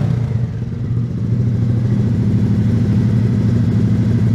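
Honda Grom's 125cc single-cylinder four-stroke engine idling steadily at about 1,500 rpm, warmed up, through a freshly installed aftermarket full low-mount exhaust.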